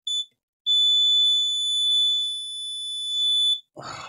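Multimeter continuity beeper: a short high beep, then one long steady beep of about three seconds while the probes are held on the laptop's main power rail. The beep signals low resistance on the rail, about 8 to 10 ohms, the sign of a short such as a shorted MOSFET. A brief breathy sigh follows near the end.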